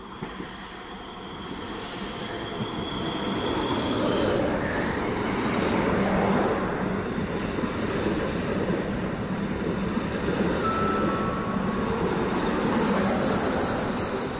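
Trenitalia 'Rock' double-deck electric train approaching and running past, growing louder over the first four seconds into a steady noise of wheels on rail. A thin, high, steady squeal sounds at the start and again near the end.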